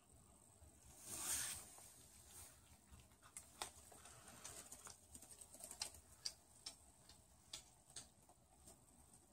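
A cat chewing a mouse: faint, irregular crunching clicks as it bites through the mouse, many of them in quick succession. A short rustling noise comes about a second in.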